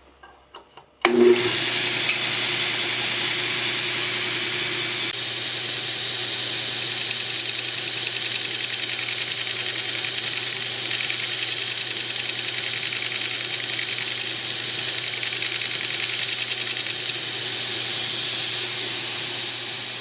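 Electric grinder starting suddenly about a second in and running steadily while bevelling the edges of small stainless steel bolster pieces.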